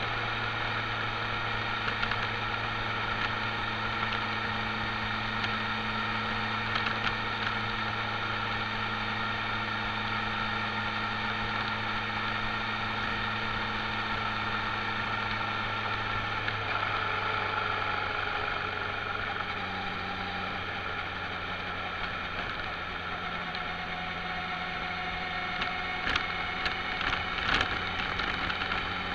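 Motorcycle engine running steadily at road speed, under a steady rush of wind and road noise. About two-thirds of the way through the engine note drops as the bike slows or changes gear, and a few sharp knocks come near the end.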